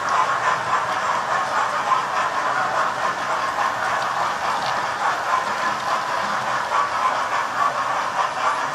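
Several model trains running around a layout together: a steady whirring rattle of their motors and wheels on the track.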